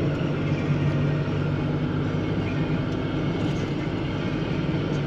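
Car engine running steadily with tyre and road noise, heard from inside the cabin while driving: an even low hum.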